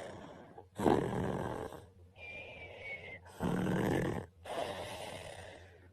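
A man snoring in his sleep: two loud snores about two and a half seconds apart, with softer breaths between them, one of which carries a faint whistle.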